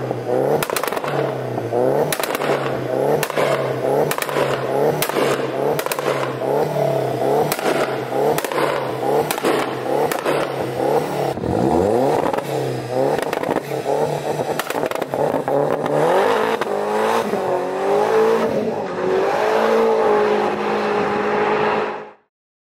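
Seat Leon Cupra R's tuned turbocharged 1.8-litre four-cylinder held on launch control: the revs bounce against the limiter a little under twice a second, with crackles and pops from the exhaust. About halfway the revs sweep up and down in longer rises, then settle into a steadier note before cutting off suddenly near the end.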